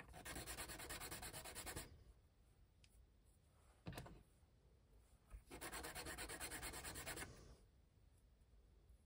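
A small white plastic piece sanded on a hobby sanding stick: two bursts of quick, even rubbing strokes about two seconds each, with a single sharp click between them.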